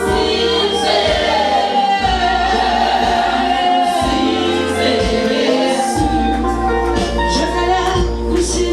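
Gospel music: a choir singing over a band with bass and a steady beat.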